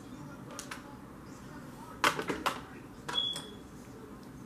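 Small hard objects being handled: a few sharp clicks and clacks, loudest in a quick cluster about two seconds in, then a brief high squeak a little after three seconds.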